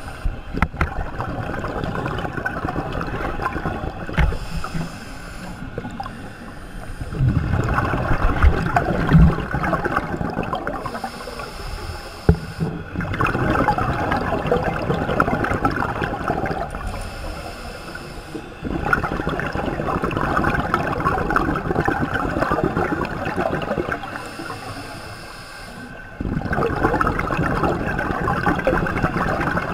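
Scuba diver breathing through a regulator underwater: a hissing inhale, then a long burble of exhaled bubbles, repeating about every six seconds. A few sharp knocks stand out above it.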